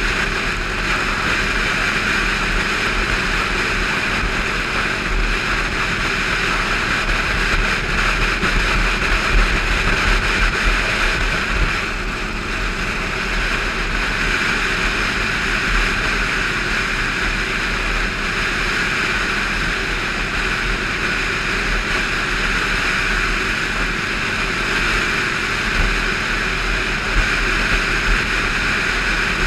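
Motorcycle engine running steadily at cruising speed, heard from on the moving bike, with wind rumbling over the microphone.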